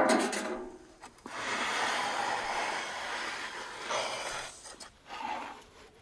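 A metal oven door clatters as it is set down, ringing briefly. Then the hot whole roast lamb sizzles in the wood-fired clay oven for about three seconds, followed near the end by a short scrape as its clay dish is drawn out.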